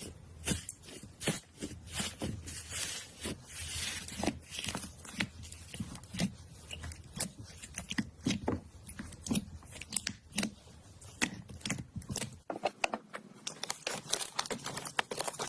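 Slime being squeezed and stretched by hand: a dense, irregular run of sticky pops and crackles, with a change in the background about three quarters of the way through.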